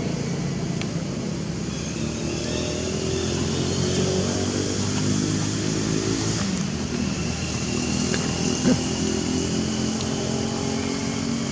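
A motor vehicle engine running steadily, a low hum that drifts slightly in pitch, with one short knock about nine seconds in.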